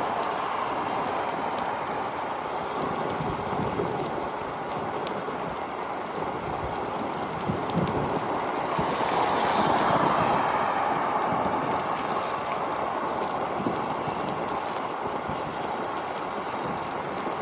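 Steady wind rush on the microphone mixed with wet road and rain noise while riding in the rain. It swells louder around the middle of the stretch.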